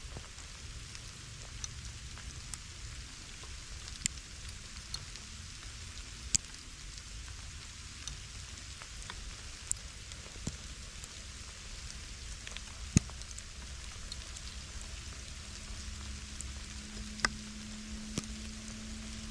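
Steak sizzling in a cast iron skillet: a steady hiss with sharp pops of spitting fat every second or two.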